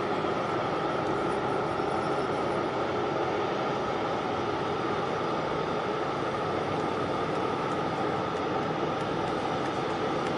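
Steady machinery drone of a large container ship passing close by, with no distinct knocks or changes.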